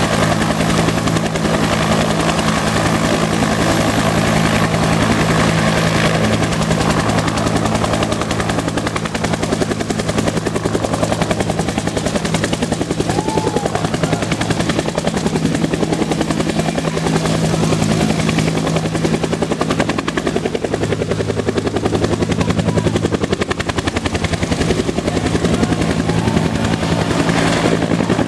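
Bell UH-1 Huey helicopter running at full power and taking off, its two-bladed main rotor beating out a fast, steady chop, loud throughout.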